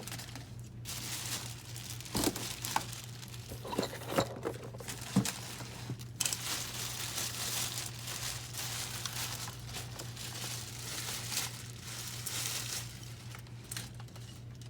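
Packaging being crumpled and stuffed into a cardboard box: a few knocks and clatters, then a long stretch of continuous rustling and crinkling.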